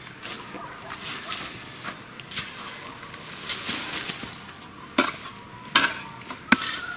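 Garden fork digging potatoes out of dry, crumbly soil: repeated scraping and crunching as the tines go in and the earth is thrown up, with a few sharp knocks in the last two seconds.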